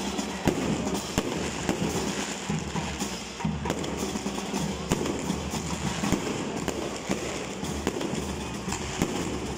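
Aerial fireworks going off: scattered sharp bangs and crackles, several within a few seconds, over steady background music.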